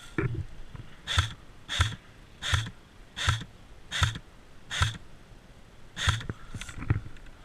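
Heavy, rhythmic breathing close to the microphone: about eight hissy breaths roughly two-thirds of a second apart, each with a low thud under it, pausing briefly about five seconds in.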